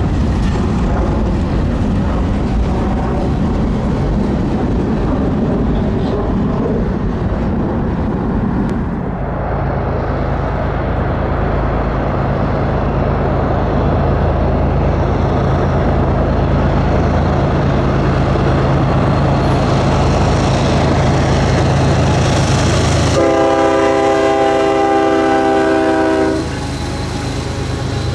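A diesel-hauled train passing close by, its wheels rumbling on the rails and then a steady low engine drone. Near the end the locomotive's multi-tone air horn sounds one long blast of about three seconds.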